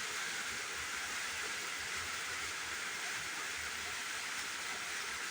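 Steady background hiss with no other sound, the recording's noise floor between the narrator's words.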